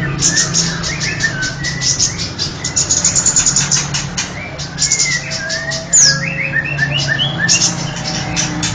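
Kemade bird calls on a bird-lure recording: a fast run of high, sharp chirps, several a second, mixed with short whistled notes that slide up and down, over a steady low hum.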